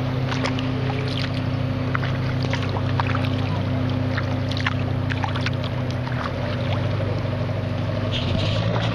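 Kayak paddles dipping and splashing in the river several times, over the steady hum of a motorboat engine running nearby.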